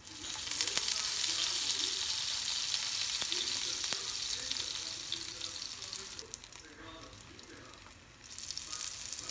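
Food sizzling as it fries in hot oil in a pan. The sizzle starts suddenly, eases off after about five seconds and swells again near the end, with a few light clicks.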